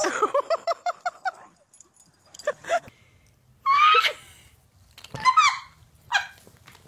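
A dog whining and whimpering in several separate short calls that bend up and down in pitch. A quick run of short, evenly spaced high calls comes first, fading out after about a second and a half.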